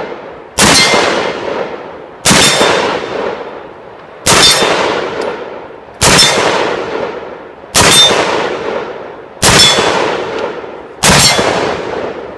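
Seven shots from a SIG Sauer P716 .308 (7.62x51) AR-10 pistol with a 12.5-inch barrel, fired at a steady pace about one every 1.6 to 2 seconds. Each loud report rings out in a long echo that dies away before the next shot.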